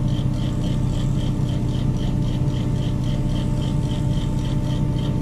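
Large mobile crane's diesel engine running steadily with a low hum, over a high, short chirp that repeats about three times a second.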